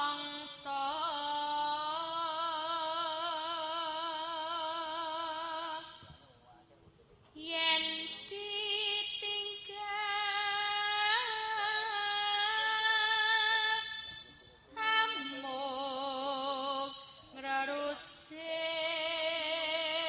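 A female Javanese singer singing a bawa, the free-rhythm solo vocal introduction to a gending in pelog pathet nem, holding long notes with wide vibrato. Three short pauses break it into phrases.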